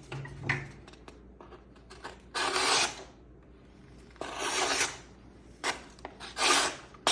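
Leatherman Arc multitool's knife blade cutting through something, in about four separate rasping strokes that come quicker near the end.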